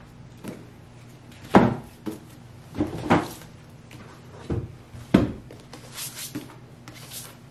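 Books being handled and stacked: several thumps as hardcovers and paperbacks are set down on piles, then the rustle of covers sliding against each other near the end.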